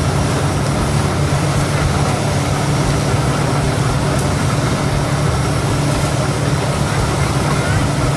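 Steady low machine hum under a constant hiss, with one faint click about four seconds in.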